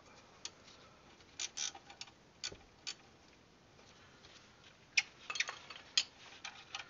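Irregular light metallic clicks and taps from hands handling a brake caliper bracket and its bolts, with a sharper clink about five seconds in.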